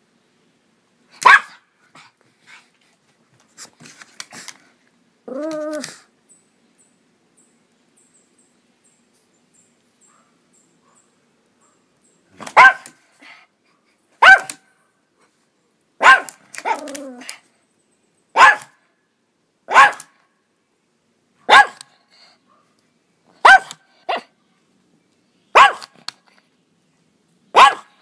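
Brussels Griffon barking excitedly at a critter outside the window. There is a single bark, then a short whine, then several seconds of quiet. After that comes a steady run of single short barks about every two seconds.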